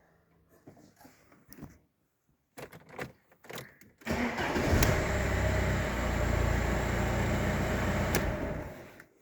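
A few light clicks and knocks, then a car engine starts about four seconds in and runs steadily before fading out near the end.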